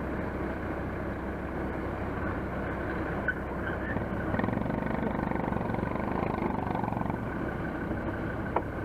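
Off-road vehicle engine idling steadily, a little louder for a few seconds in the middle, with one short sharp click near the end.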